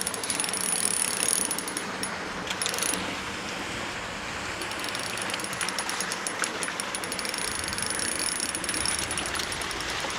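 Fishing reel ratcheting in fast, even clicks as a hooked trout is played, pausing briefly about three seconds in before it clicks on again.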